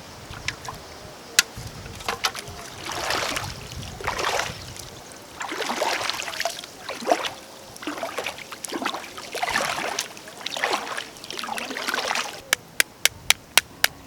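Water splashing and sloshing in repeated surges, about one a second. Near the end come rapid, evenly spaced sharp chopping strikes, about four a second.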